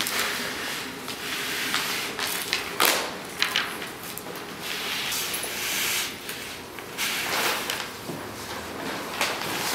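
White paper being torn and peeled back by hand from a large printed poster, in uneven rustling and ripping with a couple of sharper rips about three seconds in.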